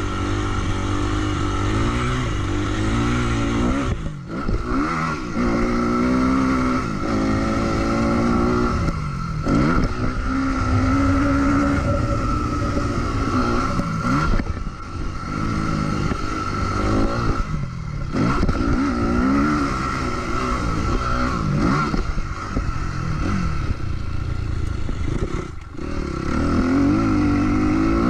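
Motocross bike engine under way, its note rising and falling as the throttle is worked, dropping off sharply for a moment five times and then pulling hard again.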